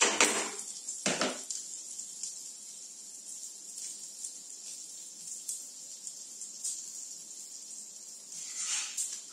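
Spices, lentils and garlic sizzling in hot oil in a non-stick pan (a tempering), a steady high hiss. A plastic spatula clatters against the pan twice in the first second and a half. There is another short clatter near the end.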